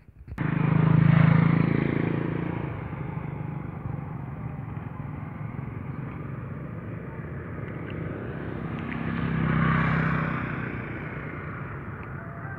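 A motor engine running, most likely a passing motorcycle, starting abruptly, loudest about a second in, then holding steady and swelling again near the end.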